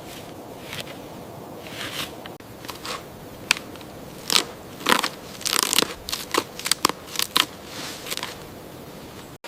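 Irregular sharp crunches and crackles of twigs and brush breaking over a soft steady hiss, coming thickest from about four to eight seconds in.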